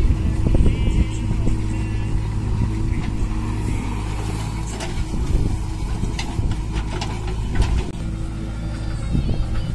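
Diesel engines of a JCB backhoe loader and a Swaraj 744 FE tractor running steadily while the backhoe digs and swings its bucket. Soil is dumped into a steel tractor trolley, with a few knocks and clatters in the second half.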